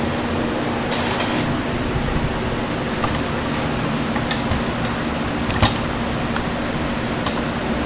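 Steady mechanical hum, like a fan or air-handling unit running, broken by a few light clicks and knocks. The sharpest click comes a little past the middle.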